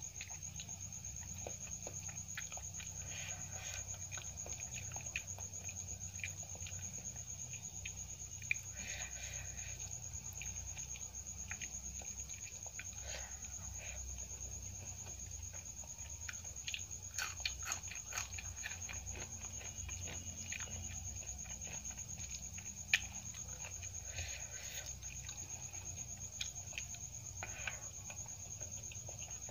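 Fingers squelching through rice, potato curry and crushed papad on a steel plate, with chewing and small mouth clicks scattered throughout over a steady low hum and a high whine.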